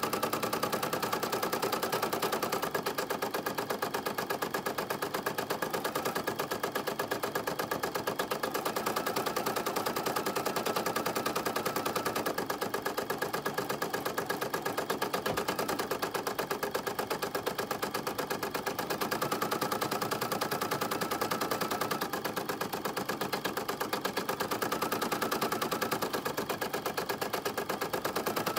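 Home embroidery machine stitching out a design at speed: a steady, rapid, even rattle of needle strokes that runs without a break.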